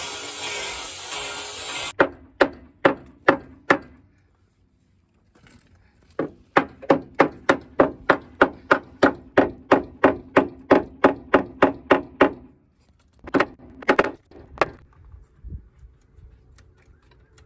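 Angle grinder grinding rust back on a car's wheel-arch lip, cutting off suddenly about two seconds in. It is followed by runs of sharp, evenly spaced knocks, about two and a half a second.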